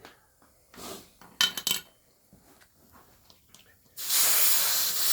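Air hissing at a truck tire's valve stem: a couple of short puffs with sharp clicks, then a loud steady hiss about four seconds in that cuts off after under two seconds.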